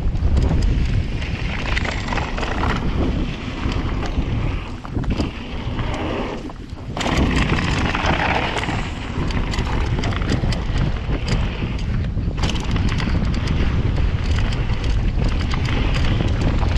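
Wind rushing over a GoPro action camera's microphone as a Rocky Mountain Slayer mountain bike runs down a dirt trail, with the tyres rolling and the bike rattling and knocking over bumps. The noise eases briefly about six to seven seconds in, then picks up again.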